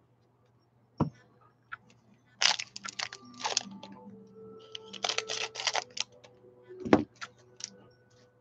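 Wrapper of a baseball card jumbo pack crinkling and tearing open in two crackly spells, with a thud about a second in and another near the end.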